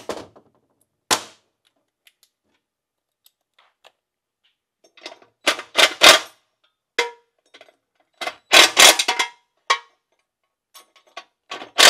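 Cordless drill-driver run in several short bursts, each a second or less, spinning nuts down onto bolts to snug them up.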